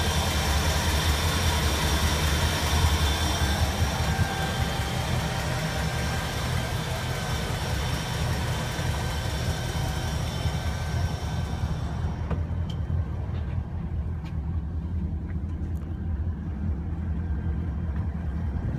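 Engine of a Chaparral 276 boat running steadily under way, a low, even drone. A higher hiss over it drops away about twelve seconds in.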